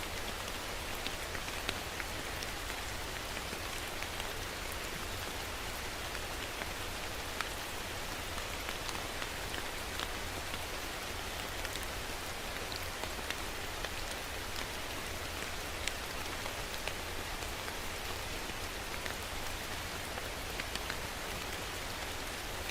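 Steady rain falling on a surface, an even hiss with many sharp single drops spattering through it.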